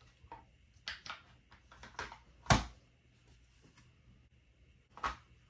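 Clear acrylic stamping plate of a We R Memory Keepers Precision Press being handled and set down on the press base, with light clicks and taps. A sharp knock comes about two and a half seconds in, and another knock near the end.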